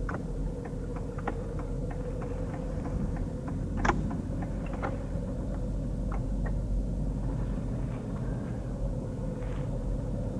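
Car cabin noise while driving: a steady low rumble of the moving car heard from inside, with scattered light clicks and one sharper click about four seconds in.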